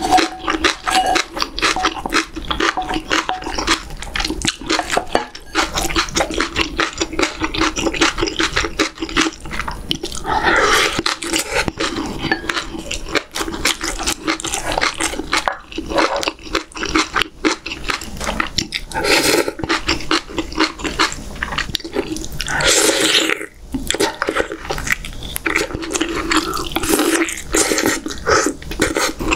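Close-miked wet chewing and lip smacking of soft, chewy stew food, a rapid run of moist clicks, with louder swells about 11, 19 and 23 seconds in.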